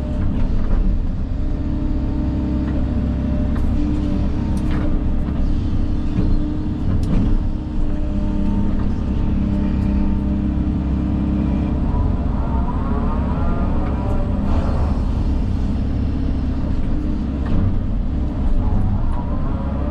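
Engine of a grapple-equipped earthmoving machine running steadily while clearing brush and trees, with a few sharp snaps along the way.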